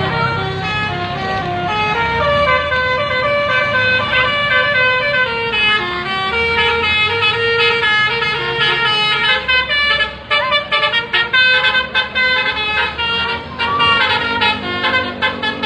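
Basuri telolet musical horn on a bus playing a quick melody of stepped horn notes over a low rumble. About ten seconds in, the notes turn short and choppy.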